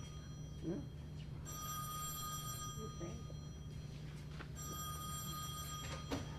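Telephone bell ringing, twice, in bursts of a second or two, with a steady low hum underneath.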